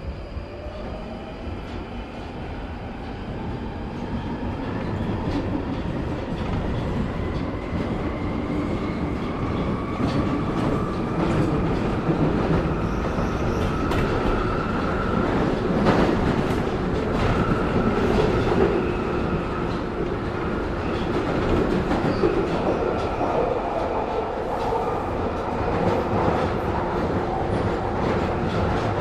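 Subway train heard from inside the car as it picks up speed: the electric traction motors whine in a rising pitch for the first ten seconds or so while the rumble grows louder, then the train runs on steadily with wheels clicking over rail joints.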